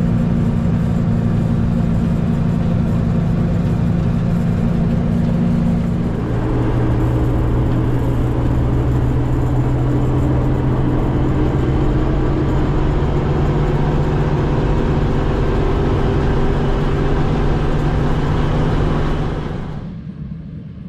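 A vehicle engine running steadily, with a change in its pitch about six seconds in; the sound falls away sharply near the end.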